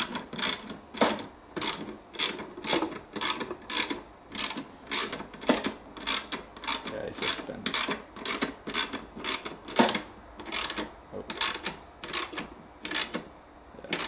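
Socket ratchet wrench clicking as a bolt is tightened, in quick back-and-forth strokes, about two or three a second.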